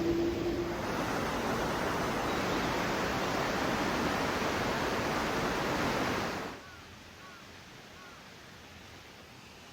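Rushing river water, a steady full noise that drops off suddenly about six and a half seconds in to a much quieter hiss with a few faint high chirps.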